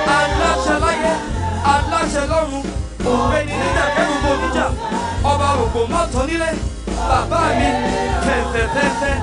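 Live gospel praise-and-worship music: singing over a band with a steady deep bass line and drums.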